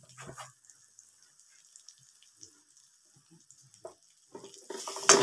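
Onions and garlic frying in melted margarine in a wok. After a quiet stretch with a few light knocks, loud sizzling starts near the end, with the rapid scrape of a wooden spatula stirring.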